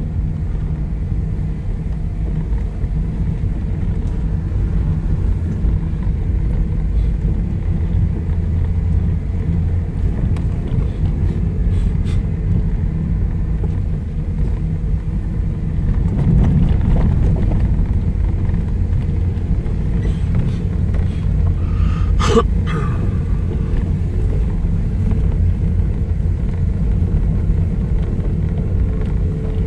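Low, steady rumble of a car heard from inside the cabin while driving on a bumpy dirt field road: engine and tyres on the rough track. A single short sharp knock about two-thirds of the way through.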